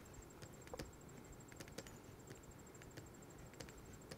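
Faint, irregular light clicks and taps of a stylus on a pen tablet during handwriting, over near-silent room tone.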